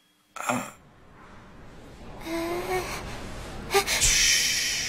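A girl's soft hushing 'shh', strongest in the last second, after a brief small vocal sound about two and a half seconds in.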